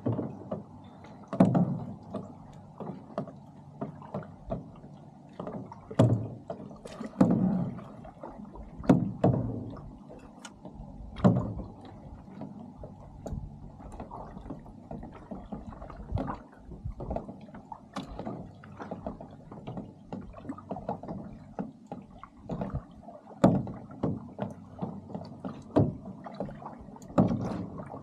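Lake water splashing and slapping against the side of a moving boat in irregular hits every second or two, over a steady wash.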